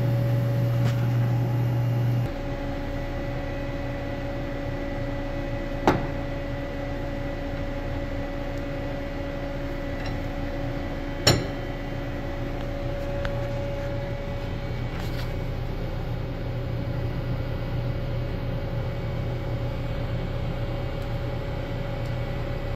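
Steady machine hum with a few held tones. Its low part drops off abruptly about two seconds in. Two sharp clicks stand out several seconds apart.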